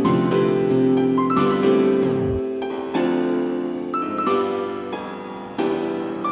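Background music: piano-like keyboard playing sustained chords that change every second or so, with a short falling sweep about two seconds in.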